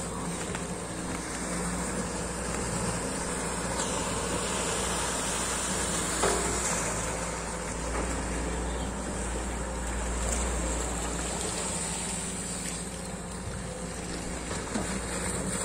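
Sany SY215C hydraulic excavator's diesel engine running steadily while it digs and swings wet mud from a ditch, with one short sharp sound about six seconds in.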